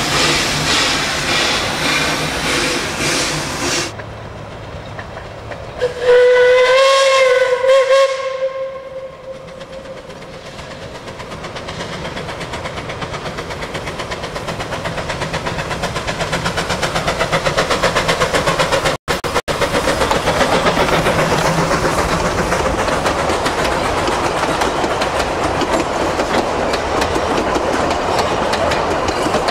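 Narrow-gauge steam locomotive working hard past close by with rapid exhaust beats, then one steam whistle blast about two and a half seconds long, rising slightly in pitch. After it the train draws near and grows loud as the carriages roll past with a fast clatter of wheels on rail joints.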